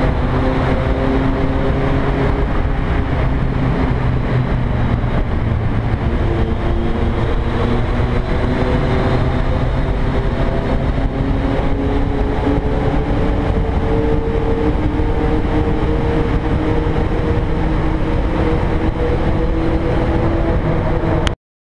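Motorcycle engine running steadily at cruising speed inside a road tunnel, under a heavy low rumble of wind and road noise. The engine's pitch drifts slowly, and the sound cuts off abruptly near the end.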